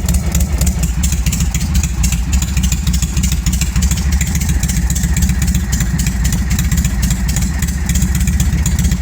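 Harley-Davidson Shovelhead V-twin engine running steadily at idle. It is loading up slightly on the carburettor, which the owner thinks needs wringing out.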